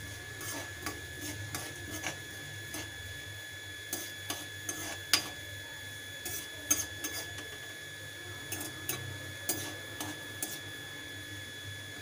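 Steel spatula stirring tempering seeds in hot oil in a steel kadai: scraping against the pan with irregular sharp clicks.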